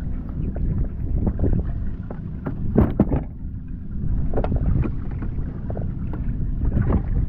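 Wind buffeting the microphone over a steady low rumble of water against a plastic kayak hull, with scattered knocks and rubbing on the deck as a landed kingfish is handled, loudest about three seconds in.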